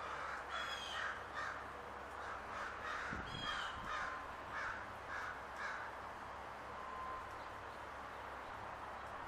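A bird calling in a run of harsh, repeated notes, about two a second, that stops a little past halfway, over a steady outdoor background hiss.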